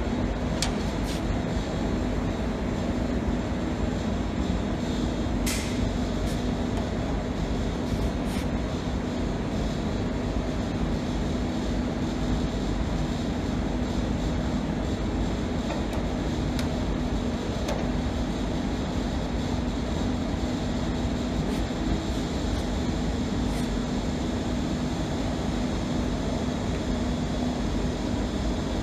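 A steady machine hum with an even hiss, unchanging throughout, with a few light clicks in the first several seconds.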